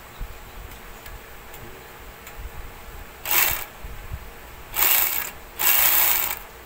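Portable edging (overlock) machine running in three short bursts, each under a second, the last the longest; a test run of the stitch after the needle change.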